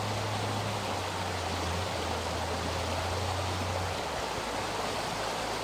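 Water from a canal lock flush pouring and rushing in a steady, continuous stream.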